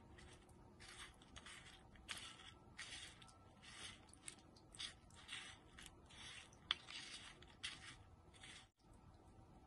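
Fingertips stirring and rubbing dry red and yellow crunch-topping crumbs on a small tray: faint, repeated scratchy rustling, roughly one or two strokes a second, with one sharper click near the end.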